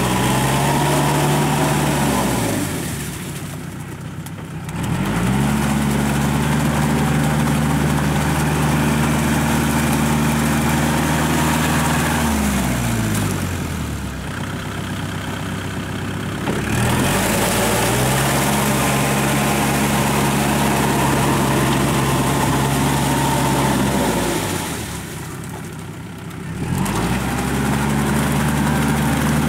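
Kubota L5018 tractor's diesel engine running at working speed while its rotary tiller churns through a flooded rice paddy. Three times, about every eleven seconds, the engine speed falls away, the sound goes quieter, and then it climbs back up.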